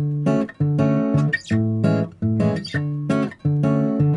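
Background music: a strummed acoustic guitar playing chords in a steady rhythm.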